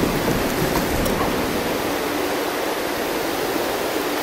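Fast-flowing creek water rushing steadily.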